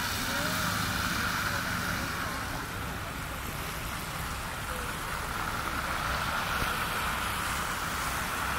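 Street traffic on a wet, slushy road: cars passing with a steady hiss of tyres on slush.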